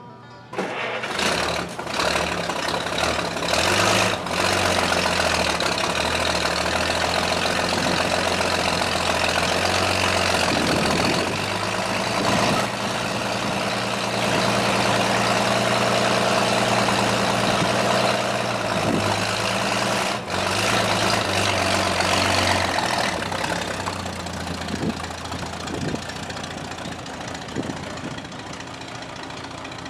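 An old Chevrolet rat rod's engine running. The engine note shifts up and down several times, and it eases off over the last several seconds.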